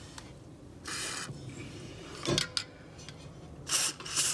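Short rubbing and scraping noises from a hand and a plastic tube of white lithium grease brushing against the recording phone close to its microphone. There is one burst about a second in, a knock a little over two seconds in, and a louder scrape near the end.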